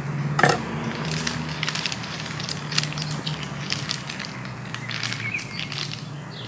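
Crinkling and crackling of plastic packaging as a cut of beef prime rib is taken out and handled: many irregular sharp crackles, with a faint steady low hum underneath.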